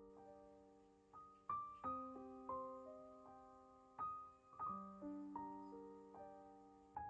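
Quiet solo piano music, slow and gentle, with single notes and chords struck every second or so and left to ring and fade.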